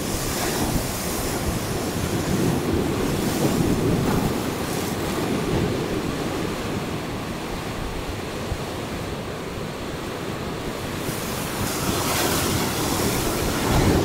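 Heavy ocean surf breaking on a rocky shoreline and washing through the rocks: a continuous rushing wash that surges louder a few seconds in and again near the end.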